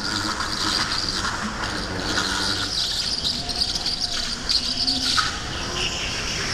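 Go-kart driven at speed through a run of corners, heard from on board: the kart's motor drones with a pitch that shifts up and down, under a high squealing hiss from the tyres.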